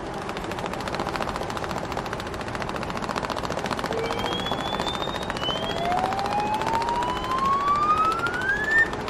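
Intro soundtrack: a dense, rapid rattling texture with a whistle-like tone that glides steadily upward over the last three or four seconds.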